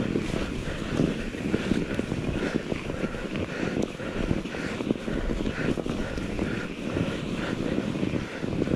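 Mountain bike ridden over snow: a steady rough rumble of tyres and frame with many small knocks, and wind buffeting the camera microphone. A faint higher sound repeats about three times a second.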